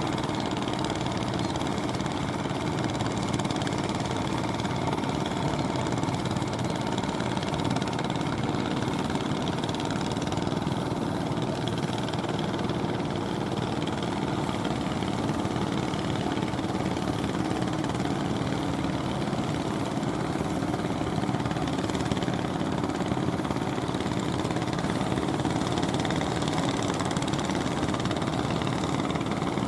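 A motor boat's engine running steadily at an even speed, with no change in pace.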